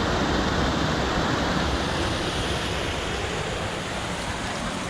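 Steady rushing of a waterfall's falling water, a dense even roar with a deep rumble underneath, easing off slightly toward the end.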